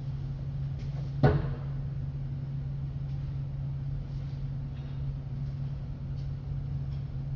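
A steady low hum with a single sharp knock a little over a second in, followed by brief ringing, and a few faint clicks.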